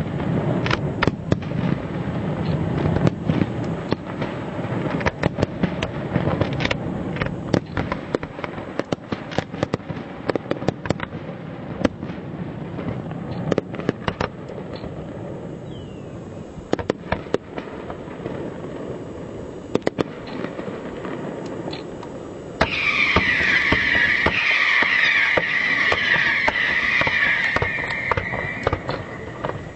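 Fireworks display: a run of bangs and crackling bursts over a low rumble. A loud steady hiss comes in about three-quarters of the way through and fades near the end.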